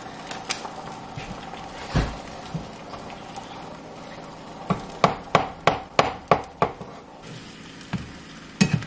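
Eggs sizzling in a frying pan as they are scrambled with a plastic spatula, the spatula tapping against the pan about seven times in quick succession around the middle. A single thump sounds about two seconds in.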